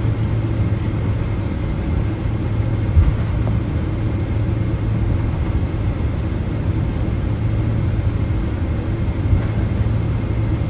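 Cabin noise inside a Boeing 777-200ER taxiing after landing: the steady hum and rumble of its GE90 engines running at idle. A brief low thump comes about three seconds in.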